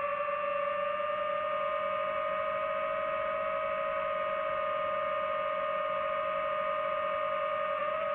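DJI FPV drone's motors and propellers whining at a steady pitch over a hiss of air noise, holding an even throttle.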